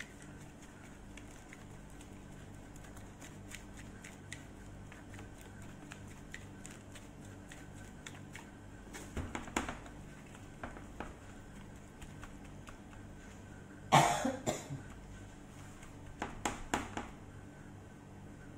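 Gloved hands rubbing and pressing seasoning into raw chicken on a metal tray: faint, soft handling clicks over a steady low hum. There are a few short, sudden noises: a loud burst about 14 seconds in, which is the loudest sound and is cough-like, and smaller ones around 9 and 16–17 seconds.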